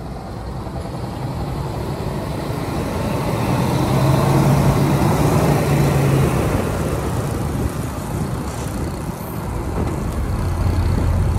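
Road traffic passing close by: a heavy lorry's low, steady diesel drone overtakes, loudest about four to six seconds in, then fades as it pulls ahead.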